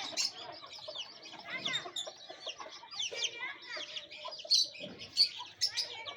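Aseel chickens clucking and chicks peeping, many short overlapping calls going on continuously, with a few louder calls near the end.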